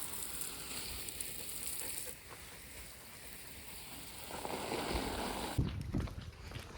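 Garden hose spraying water, a steady hiss that swells again partway through, then stops suddenly near the end, leaving a few light scuffs and knocks.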